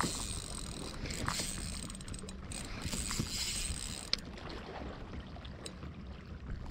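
Daiwa Fuego 3000 LT spinning reel being cranked, a steady whirr as braided line winds onto the spool. The whirr stops about four seconds in with a single sharp click.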